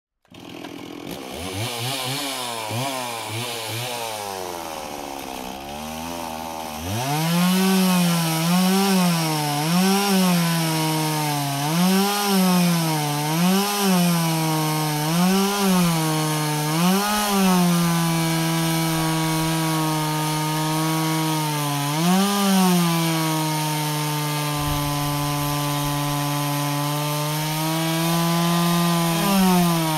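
Chainsaw engine running at a lower, wavering speed, then revved up sharply about seven seconds in. The throttle is blipped over and over before the saw is held at high revs, with another blip past the twenty-second mark and more near the end.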